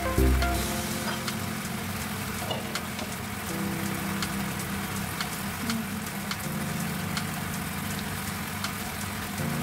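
Tomato-based stew sauce bubbling and sizzling in a wok, a steady hiss with many small scattered pops.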